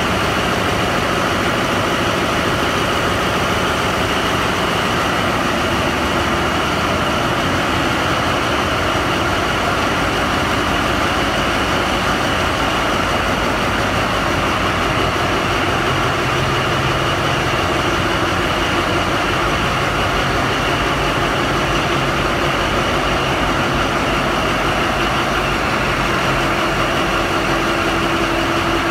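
Caterpillar diesel machinery in a tugboat engine room running with a loud, steady drone that does not change, heard from inside the enclosed engine room.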